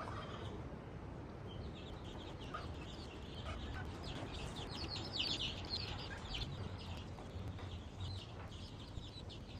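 Chickens clucking faintly over a low steady background, with a busier run of short calls through the middle.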